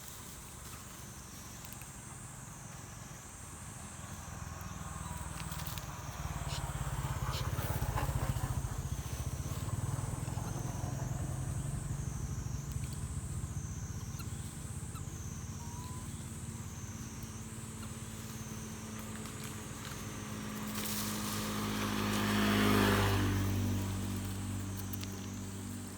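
Road vehicles passing: engine noise swells about eight seconds in, then a louder vehicle goes by near the end with its pitch dropping as it passes. Over it runs a high, regularly pulsing insect drone.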